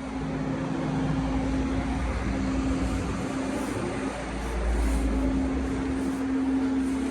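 Flatbed tow truck running with its hydraulics engaged, a steady whine over the engine rumble.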